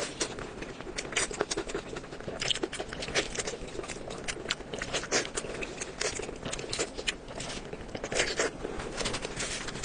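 Close-miked chewing: a person eating, with many quick, irregular crunches and clicks of food in the mouth throughout.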